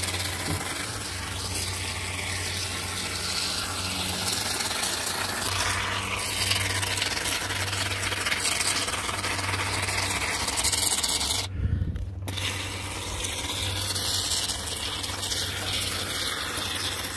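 Aerosol can of Great Stuff Window & Door expanding foam hissing steadily as foam is sprayed out through its straw applicator. The spray stops for under a second about two-thirds of the way through, then starts again.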